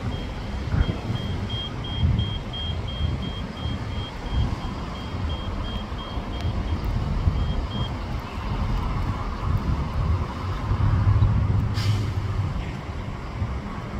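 Traffic with a city transit bus's diesel engine running, swelling louder about halfway through as the bus pulls away. Over the first half a high electronic beep repeats about twice a second and then stops. A short hiss comes near the end.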